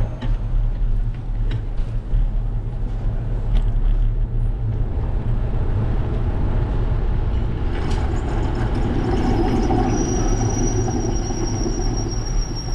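Steady low wind rumble on a bike-mounted GoPro's microphone while riding along a street, with street and traffic noise that grows louder about two-thirds of the way through. A thin high whine joins in the last few seconds.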